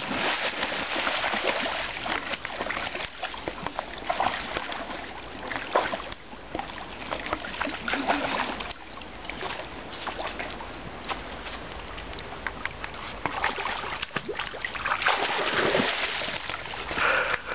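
A dog splashing and wading through a shallow stream, water spraying and sloshing in irregular surges over the stream's running water.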